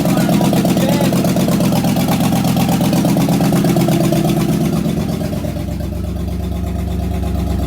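Holden 253 (4.2-litre) V8 in a long-stored VH Commodore running on its first start in about 25 years. The revs ease down about five seconds in and it settles to a lower, steady idle.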